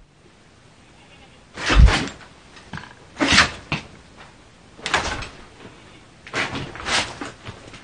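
A cat meowing, several short cries about a second or so apart.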